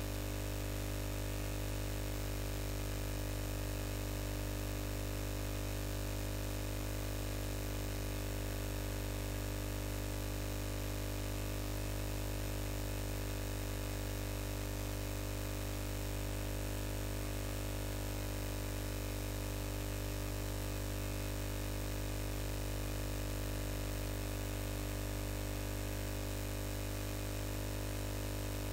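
Steady electrical mains hum and buzz over a constant static hiss, with no change throughout and no keystrokes heard.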